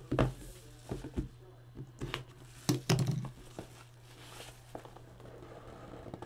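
Plastic shrink wrap being torn and peeled off a trading card box, crinkling, with a few sharp handling taps against the box; the loudest handling comes about three seconds in. A steady low electrical hum sits underneath.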